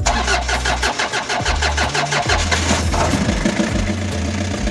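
Diesel engine firing up, its fuel pump and line freshly primed: it catches and runs with a loud, rapid clatter, then settles to a steadier idle about three seconds in.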